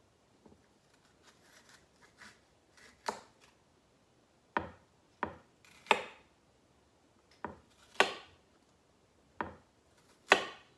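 Small kitchen knife knocking on a wooden cutting board as a green bell pepper is cut and its seeds worked out: about eight sharp, irregular knocks, with fainter taps before them and the loudest near the end.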